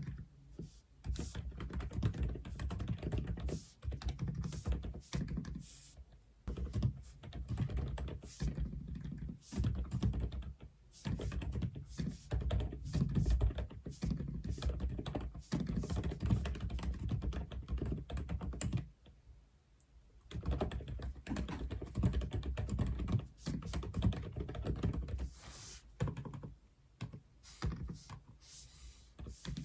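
Aula F87 mechanical keyboard being typed on: rapid runs of key clacks in bursts, with a pause of about a second past the middle and lighter, sparser keystrokes near the end.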